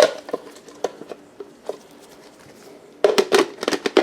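Hard plastic parts of a handheld vacuum clicking and knocking as they are handled and fitted together. There is a sharp click at the start, a quieter stretch with a few small ticks, then a quick run of clicks and knocks near the end.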